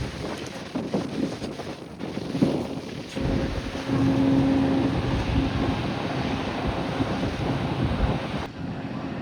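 Strong wind buffeting the microphone over the noise of the sea and a ferry's steady low hum. The sound shifts abruptly about three seconds in and again near the end.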